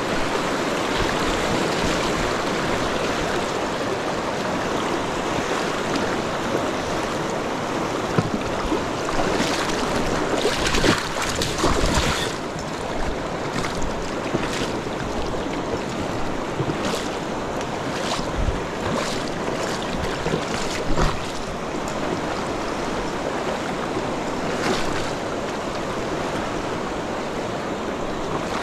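River rapids rushing steadily around the wading angler, a constant roar of fast water, with a few short knocks or splashes through the middle.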